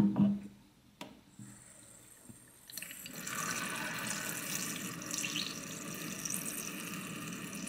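Kitchen tap running water into a plastic electric kettle held under it, a steady splashing flow that starts about a third of the way in, after a faint click.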